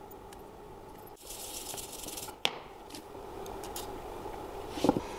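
A short hiss from an aerosol spray can with a straw nozzle, lasting about a second, then a sharp click and a few light metallic knocks near the end.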